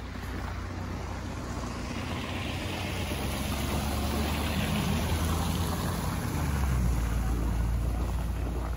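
A Ford pickup truck driving past on a slushy street: a low engine rumble with tyre hiss that swells to its loudest about seven seconds in, then eases off as it moves away.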